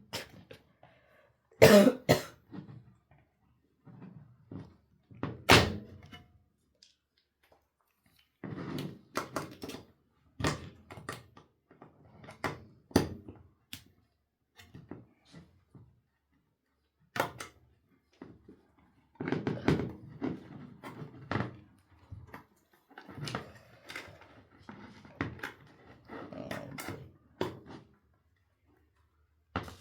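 A tool prying at a hard drive's metal cover: metal scraping and clicking against metal in irregular bursts, with sharp louder knocks about 2 seconds and 5 seconds in.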